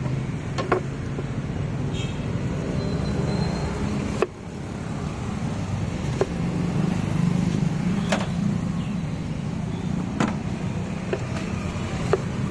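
Steady low rumble of road traffic, with about eight short, sharp knocks spread unevenly through it.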